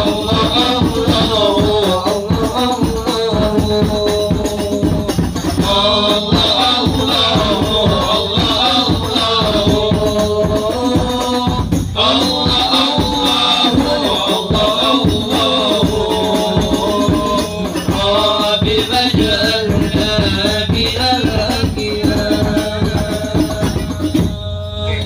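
A group of men singing a sholawat in unison to a steady beat of frame drums with jingles. The music breaks off briefly near the end.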